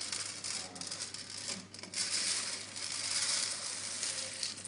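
Freshly roasted coffee beans tumbling and rattling onto a tray, a dense patter of small clicks with a brief lull partway through.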